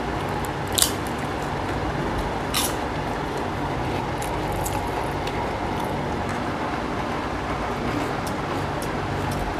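Eating by hand from steel plates: sharp clicks of fingers and food against the plates, once about a second in and again near two and a half seconds, with a few fainter ticks later, over a steady background hiss.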